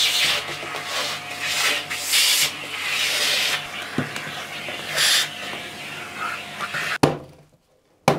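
Vacuum cleaner running, its hose nozzle rubbing and sucking along the grimy leg of a Volvo Penta 130S saildrive, the hiss swelling and fading as it is moved. The motor cuts off about seven seconds in, and a sharp click follows near the end.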